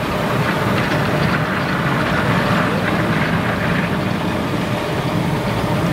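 One-foot gauge miniature steam train running along its track: a steady rumble as it approaches.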